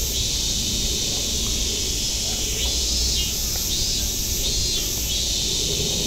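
Cicadas singing in the trees: a loud, steady, high-pitched buzzing chorus, joined in the second half by a shriller pulsing call that repeats a little faster than once a second.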